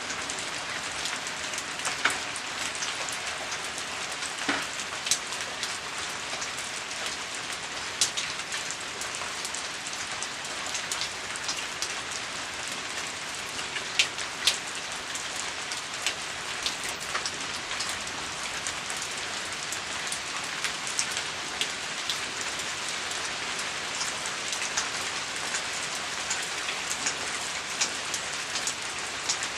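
Steady rain falling on a surface, a continuous hiss with individual drops ticking sharply here and there.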